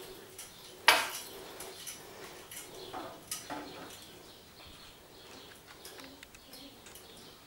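Goldendoodle puppies playing on a tiled floor: scattered light clicks and knocks, with one sharp clatter about a second in and a couple more around three seconds in.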